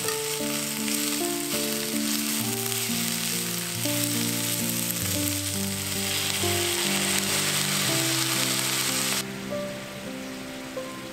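Sweet potato stems and sliced onion sizzling in a hot frying pan as they stir-fry, with background music; the sizzle cuts off suddenly about nine seconds in.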